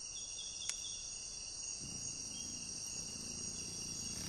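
Night insect chorus of crickets trilling steadily and high-pitched, with a sharp click near the start. A low hum comes in about two seconds in.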